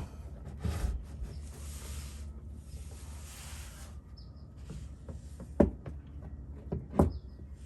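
Engine oil pouring out of the drain hole into a drain pan as the drain plug is pulled, a soft hiss of the stream, followed by two sharp knocks.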